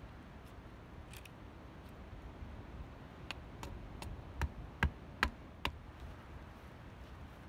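Hatchet chopping at a wooden stake: a run of about seven short, light strikes a little under half a second apart, starting about three seconds in, with faint ticks before them.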